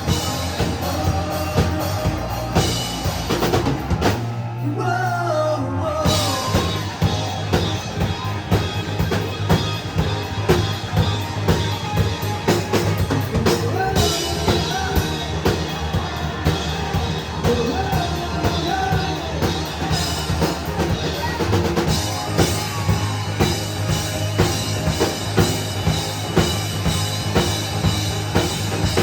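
Rock band playing live, with a drum kit keeping a steady beat under sung vocals. About four seconds in the band briefly drops out, leaving the singer's voice; the full band comes back in about two seconds later.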